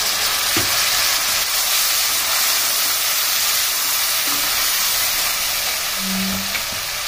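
Potato curry sizzling hard in a hot kadai just after a bowl of water has gone into the fried spice masala, stirred with a plastic slotted spatula. A steady bright hiss that eases slightly near the end, with a couple of soft spatula knocks.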